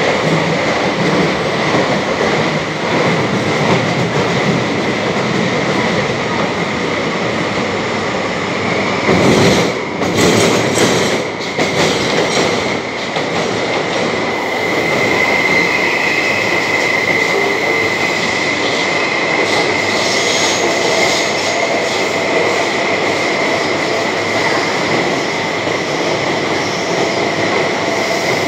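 Mexico City Metro train running through a tunnel, heard from on board: a continuous loud rumble and rush of the running gear with a steady high tone that grows stronger from about halfway. A cluster of sharp clacks sounds about ten seconds in.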